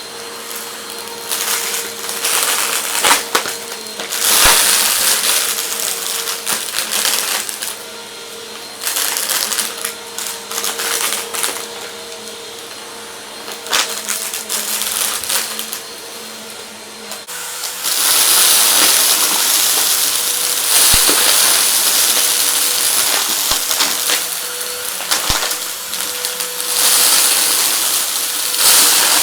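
Vacuum cleaner running with a steady motor whine while hard debris rattles and crunches through it. About 17 s in the sound opens into a louder, hissier rush of air.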